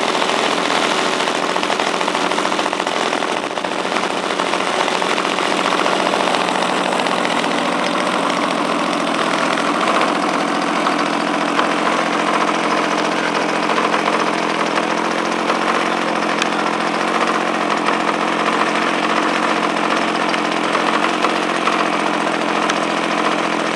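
DLE-55 single-cylinder two-stroke petrol engine with propeller running steadily during its break-in, its speed holding even.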